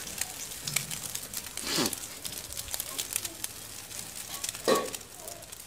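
Egg and bread frying in desi ghee on a flat iron tawa over a wood fire, a light sizzle with scattered crackles and pops. Two brief louder sounds stand out, about two seconds in and again about three seconds later.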